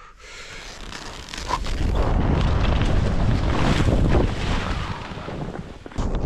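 Wind buffeting a helmet-camera microphone as skis rush and spray through deep powder snow. It starts quiet, builds over the first two seconds, eases off a little before the end, then comes back loud all at once.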